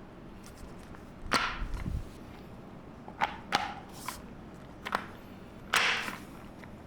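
Gaming chair castors being handled and pushed into the chair's wheelbase: a series of about six separate knocks and clicks, the loudest near the end.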